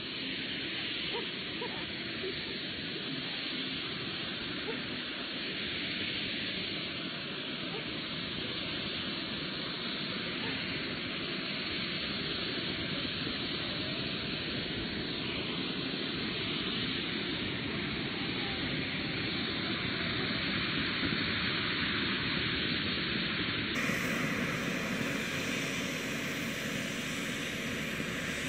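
Ground firework fountains spraying sparks, a steady rushing hiss with no bangs.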